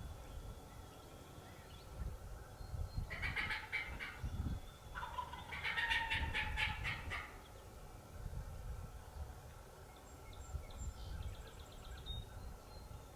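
Wild turkey gobbling: two rapid rattling gobbles, about three and five seconds in, the second longer and louder. A fainter short pulsed call follows near the end.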